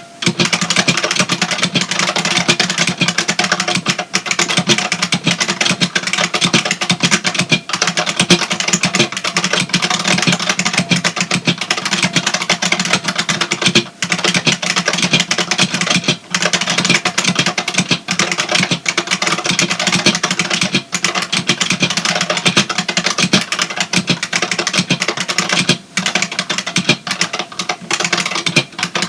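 IBM Model M keyboard's buckling-spring switches being typed on fast, a dense, unbroken stream of loud clacks with a few momentary pauses.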